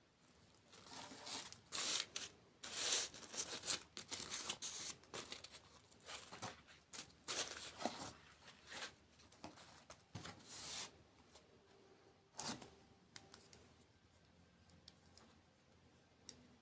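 Packaging being torn open and crinkled in a run of irregular tearing and rustling sounds, busiest over the first ten seconds or so and then thinning out to a few faint rustles.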